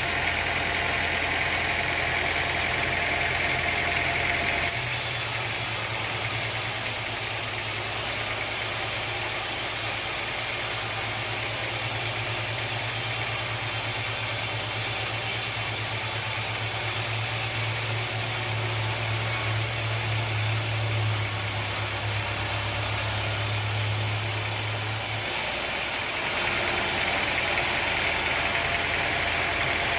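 Sawmill engine running steadily with a low, even drone. Its tone shifts about five seconds in and shifts back near the end.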